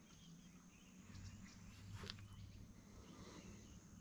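Near silence: faint bird chirps and insect sounds, over a low steady hum, with a soft knock about two seconds in.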